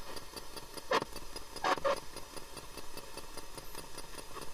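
Spirit box (ghost box) radio sweeping through stations: a steady, rapid ticking of chopped static, about six ticks a second, with two short snatches of radio sound about one second and nearly two seconds in.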